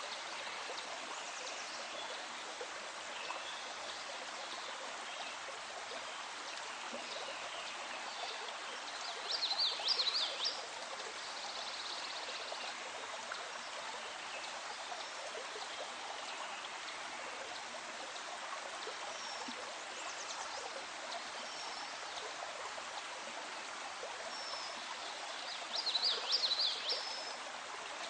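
Nature-sound recording of a flowing stream, a steady rush of water. Short bursts of high chirping rise above it twice, about ten seconds in and again near the end.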